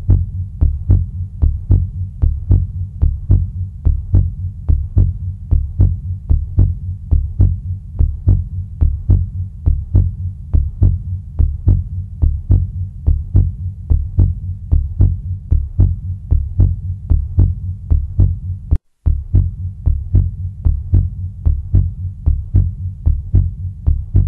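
Heartbeat sound: a steady, regular pulse of low beats that repeats evenly, with one brief dropout about three-quarters of the way through.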